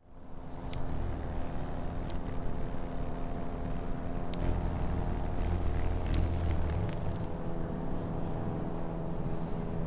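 Steady low rumble of distant traffic with a steady hum above it, and five short, sharp high ticks scattered through.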